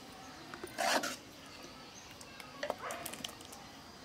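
A dog barks once, briefly, about a second in, with a few fainter knocks and scrapes a couple of seconds later.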